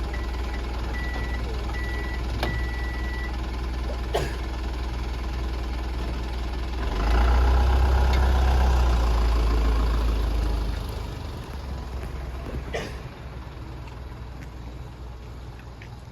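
Diesel engine of a DMV (dual-mode rail/road minibus) running, heard from inside. A high electronic beeping sounds in the first three seconds, with a few clicks. About seven seconds in the engine swells into a loud low rumble for some four seconds, then drops back to a quieter run.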